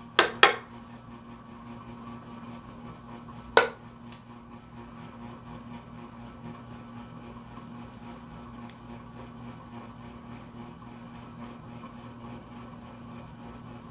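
Steady low background hum, like a fan or electrical equipment in a small room. Three sharp clicks stand out: two in quick succession at the very start and one about three and a half seconds in.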